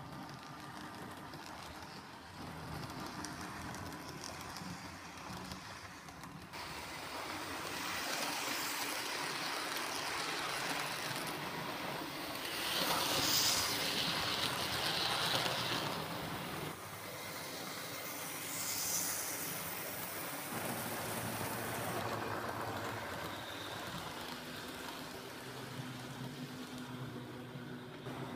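OO-gauge model trains running on the track: the whirr of the locomotives' electric motors and wheels on the rails. It is loudest about halfway through, as a Hornby Class 43 Virgin HST model passes close by, and it changes abruptly a few times.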